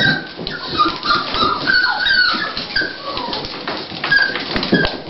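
Toy pinscher bitch in early labour whimpering: a run of short, high-pitched whines, some sliding in pitch.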